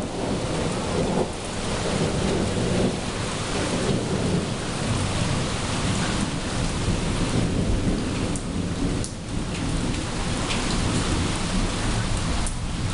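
Rain falling steadily with thunder rumbling underneath.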